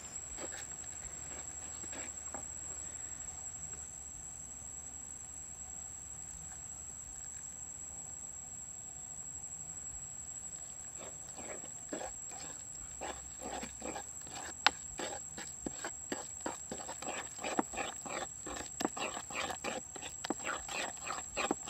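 Wooden spoon stirring and beating egg, flour and chili batter in a wooden bowl. The scraping strokes start about halfway through and settle into about three a second, over a steady high insect whine.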